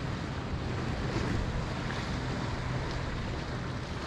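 Steady wind buffeting the microphone, with sea water lapping around a kayak.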